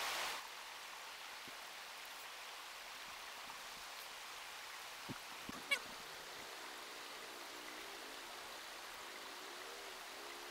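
Stream water running over rocks, a steady rush. A short burst of noise comes right at the start, and a brief sharp sound falling in pitch about halfway through.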